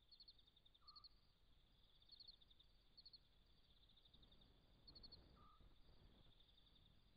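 Near silence with faint night insects: a steady high trill, with quick clusters of chirps every second or so. Two short faint mid-pitched notes come about a second in and about five seconds in.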